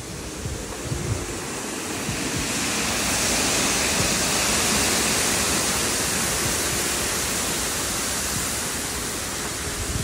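Water pouring over a low concrete weir into a shallow river, a steady rushing that swells about three seconds in and eases slightly toward the end.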